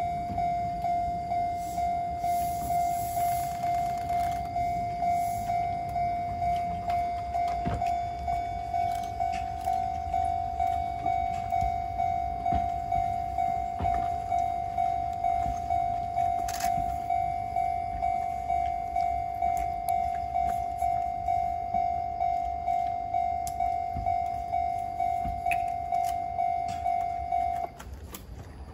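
Japanese level-crossing warning bell ringing, one electronic ding repeating just under twice a second, until it stops about a second before the end. Beneath it is the low rumble of train cars rolling past over the rails, with a few faint knocks.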